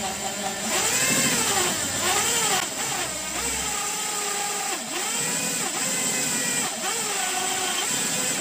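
Electric drill spinning a homemade valve-lapping tool, an old Bullet valve faced with emery paper, against a worn, unevenly seated valve seat in a Royal Enfield Bullet cylinder head. The motor whine rises and falls in pitch several times as the speed changes, over a steady high hiss of the abrasive grinding the seat to restore its seal against compression leakage.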